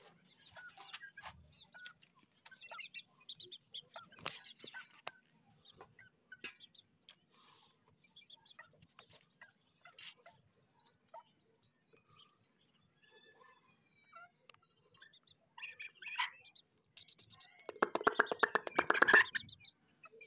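Aseel chickens in a wire pen making soft clucks and short chirps, with scattered small clicks. A much louder rasping burst comes near the end.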